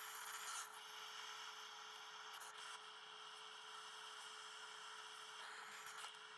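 MAP-Pro gas torch flame hissing steadily, catching suddenly at the start.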